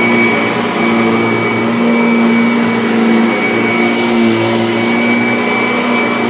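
2016 Kirby Avalir upright vacuum cleaner running at full power with its brush roll spinning: a loud, steady motor drone with a constant low hum and a thin high whistle.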